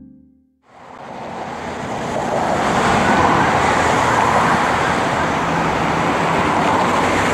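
The tail of a music track dies away, and about a second in, city street traffic noise fades in, swelling over the next two seconds and then holding steady as cars pass through an intersection.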